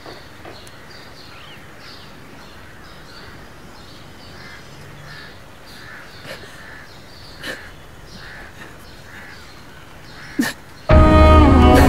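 Crows cawing repeatedly in the background, with a few faint clicks. About a second before the end, loud sad string music with violin comes in.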